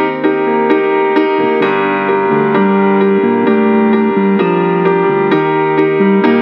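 Electric piano music with a steady beat of about two ticks a second under changing keyboard chords.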